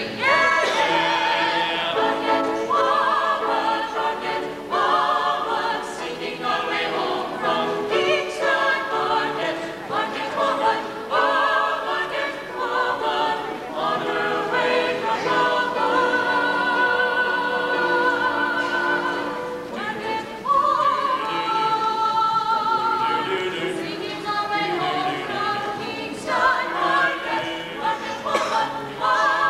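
A small mixed choir of men and women singing, with vibrato on the held high notes.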